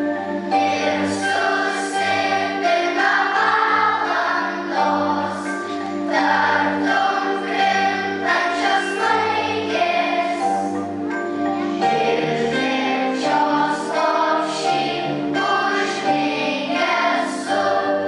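Children's choir singing over held instrumental accompaniment chords.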